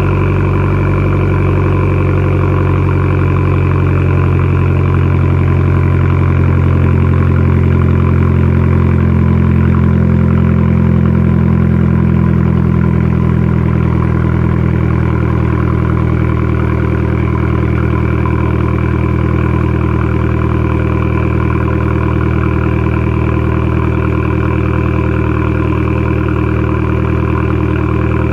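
A 2014 Fiat 500L's 1.4-litre turbocharged four-cylinder idling through a straight-piped exhaust, with the muffler and resonator removed. The idle is steady and eases slightly lower about twelve seconds in.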